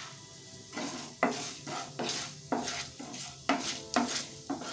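Wooden spatula stirring urad dal and mustard seeds in hot oil in a nonstick frying pan: sharp scraping strokes about twice a second, starting about a second in, over a light sizzle.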